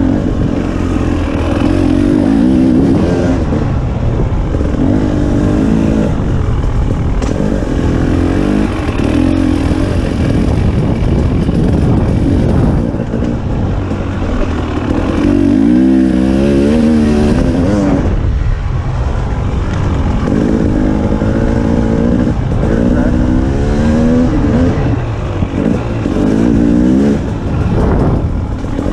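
2019 KTM 300 XC-W TPI's fuel-injected single-cylinder two-stroke engine under way on a trail, its pitch repeatedly climbing and falling as the throttle is opened and rolled off, over a steady low rumble.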